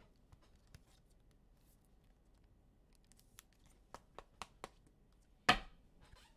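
Trading card packs and cards being handled: faint scattered clicks and crinkles, a quick run of sharper ticks about four seconds in, and one louder snap about five and a half seconds in.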